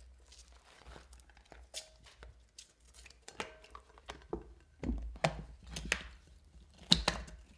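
Hands stretching a flexible food cover over a ceramic bowl: soft rubbing and crinkling with a string of small clicks and knocks, growing busier halfway through, the sharpest knock about seven seconds in.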